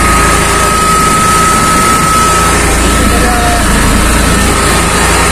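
Small tempo goods carrier driving along a road, heard from its open back: a steady run of engine and road noise with a constant high whine, and wind rumbling on the microphone.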